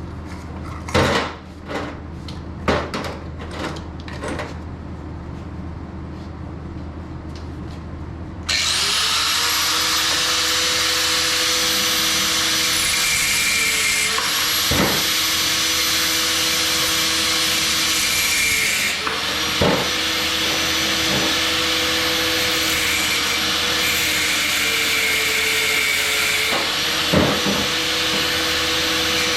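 A few metal clinks and knocks, then about eight seconds in a power cutting tool starts and runs steadily, cutting through brass hot water tank pressure relief valves for scrap; its motor pitch sags briefly a few times as it bites, with the odd sharp knock of metal.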